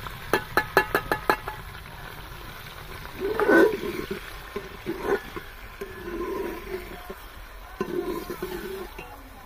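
A steel bowl is knocked six or seven times in quick succession on the rim of an aluminium cooking pot, each knock a short ringing clink, as it empties sliced onions and chillies into the oil. A loud call-like sound follows about three and a half seconds in, and quieter ones come later.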